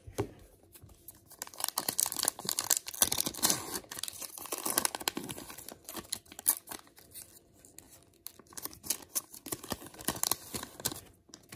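A Topps baseball card pack's crimped foil-plastic wrapper being torn open by hand, crinkling and crackling. There are two heavier spells of tearing, one early and one near the end.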